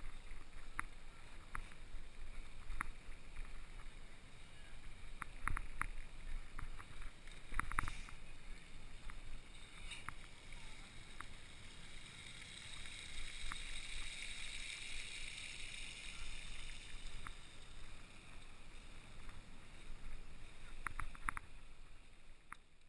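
Riding a bicycle: wind buffeting the handlebar-mounted camera's microphone over a steady rumble of the ride, with scattered sharp clicks and rattles from the bike. A hiss swells in the middle, then everything fades out at the end.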